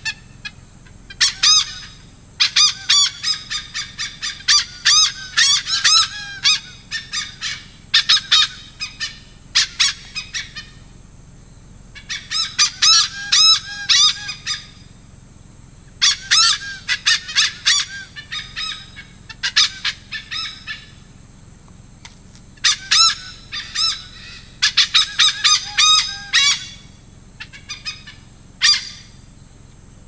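Malabar pied hornbill calling: loud, harsh cackling notes in quick series, coming in bouts of one to four seconds with short pauses between.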